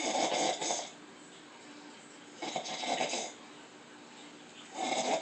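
A woman snoring: three snores of about a second each, coming about every two and a half seconds.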